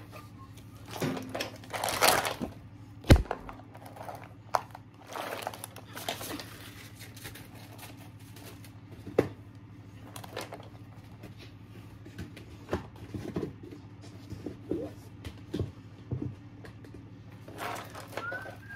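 Children's paper activity books and plastic craft supplies being sorted by hand: pages and covers rustle and slide, with scattered knocks and clicks as books, markers and pots are set down. The sharpest knock comes about three seconds in. A steady low hum runs underneath.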